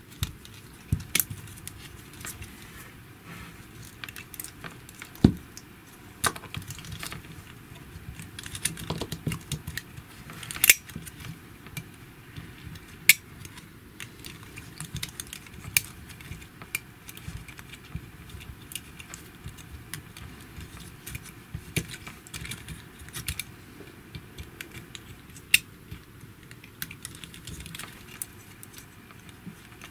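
Small plastic parts of a GHD Platinum hair straightener's handle and cable swivel being handled and pressed together: scattered light clicks, taps and rustling, with a single duller knock about five seconds in.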